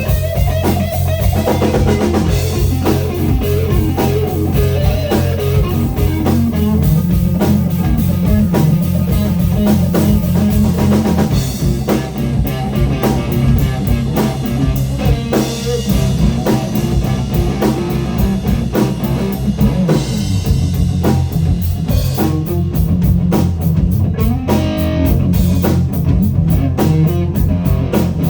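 Live blues-rock band playing a song: electric guitar over a steady drum kit beat.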